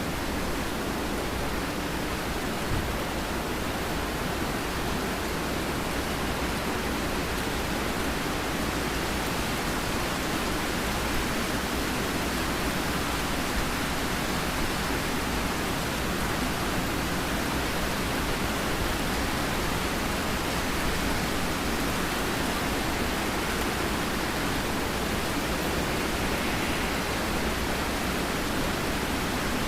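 Steady rain falling, an even hiss with no breaks or thunder.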